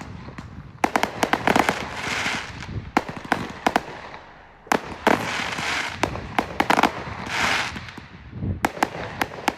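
Fireworks exploding in several quick volleys of sharp bangs, each followed by a spreading crackle.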